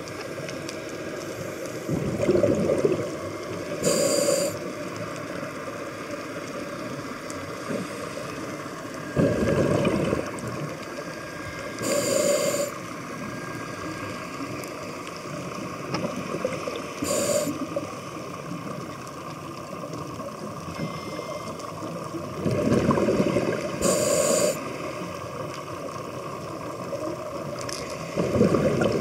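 Scuba diver breathing through a regulator underwater: about four breaths, each a short hissing, faintly whistling inhale through the regulator and a longer burst of exhaled bubbles, every several seconds, over a steady hiss.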